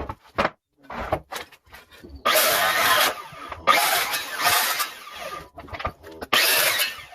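Power saw cutting through a wooden pallet, in three loud runs of cutting with short pauses between them, after a few knocks from handling the wood.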